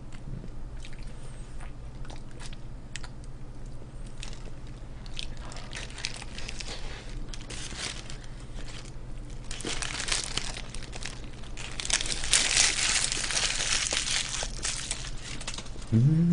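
A person eating fast food close to the microphone: scattered crunching and chewing, with a louder stretch of crunching and paper crinkling from about ten to fifteen seconds in.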